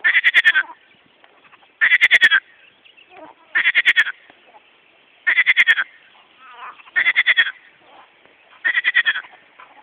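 Frog calling from a pond: six loud rattling croaks, each about half a second of rapid pulses, repeated about every 1.7 seconds over a faint chorus of more distant frogs.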